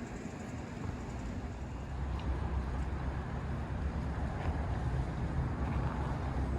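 Steady low outdoor rumble with no clear single source, growing louder about two seconds in.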